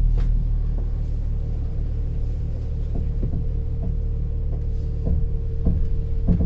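2018 Ram Promaster van idling while the steering wheel is turned, with a dozen or so irregular clunks from the steering and a steady whine from about a second in: a steering fault.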